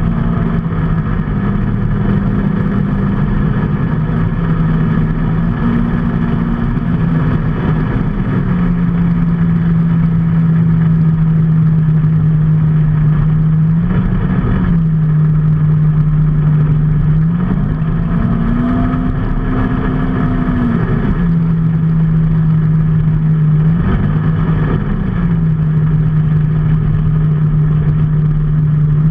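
Motor vehicle engine running at a steady pitch over a constant rushing noise, its pitch rising and dropping back a few times in the second half.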